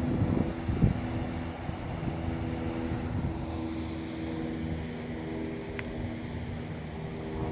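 Steady hum of a running engine, even in pitch, with wind gusting on the microphone about a second in.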